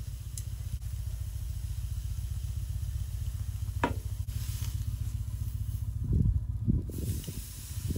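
Beef steak sizzling on a small charcoal grill over a steady low rumble. Around six seconds in there are a few bumps as tongs lift and turn the meat, and the sizzle grows louder after that.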